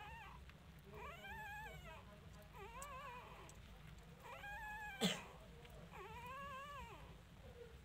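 A litter of young puppies whimpering: about five thin cries, each rising and falling in pitch, roughly one every second and a half. A single sharp click about five seconds in is the loudest sound.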